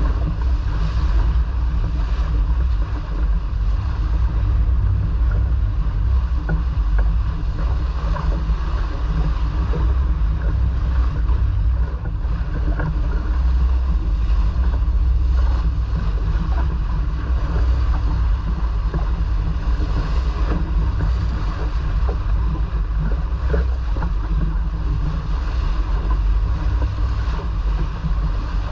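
Wind rumbling steadily on the microphone aboard a sailboat under way, with water rushing along the hull.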